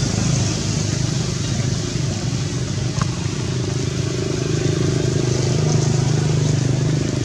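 A motor engine running steadily with a low, even hum, and a short click about three seconds in.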